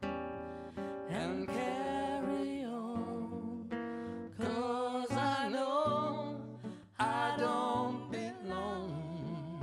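Live acoustic band music: acoustic guitar and double bass playing, with singing over them.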